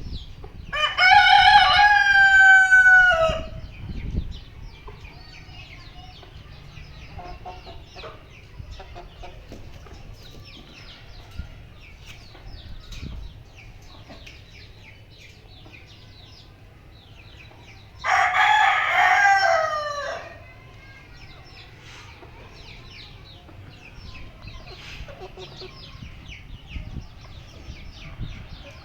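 A rooster crowing twice, about a second in and again some seventeen seconds later, each crow a long call that drops in pitch at the end. Between the crows, heavy rain patters faintly in the background.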